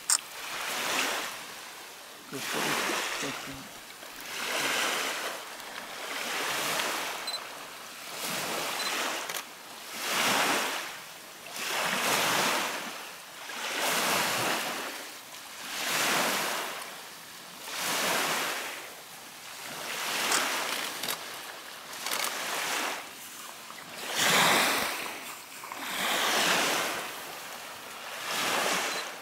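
Small waves washing onto a gravel lakeshore, swelling and falling back in an even rhythm about every two seconds.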